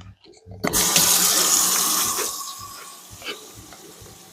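Kitchen faucet turned on a little under a second in, water running into the sink and down the drain through a newly installed garbage disposal that is switched off, as a leak test. The flow is loud at first, then settles to a quieter steady run.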